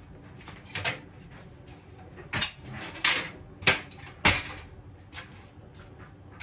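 A handful of short, sharp knocks and clicks, spaced irregularly, with rustling between them: someone moving about and handling things at a workshop bench.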